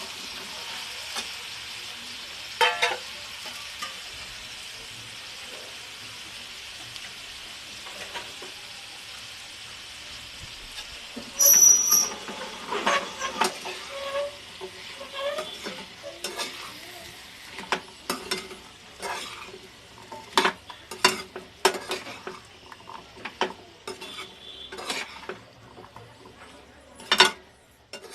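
Potato bhaji sizzling in oil in a pan, a steady hiss; from about eleven seconds in a spoon stirs it, scraping and knocking against the pan many times in an uneven rhythm.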